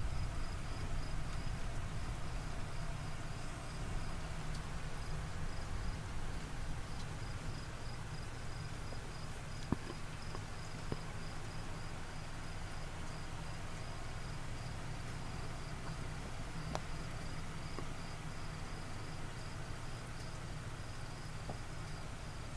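Crickets chirping steadily in an even, pulsing rhythm over a low background rumble, with a sharp click about ten seconds in.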